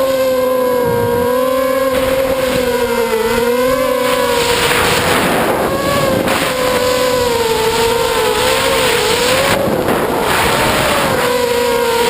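FPV freestyle quadcopter's RCX 2205 2350 kV brushless motors and propellers whining, the pitch wavering up and down as the throttle changes, with gusts of rushing wind noise in between.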